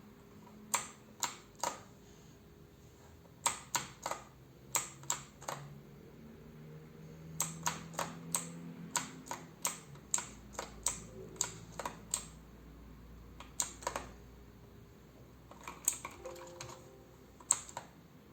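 Kinamax MK-89 mechanical keyboard with clicky blue switches being typed on. Single sharp key clicks come in irregular runs with short pauses between them.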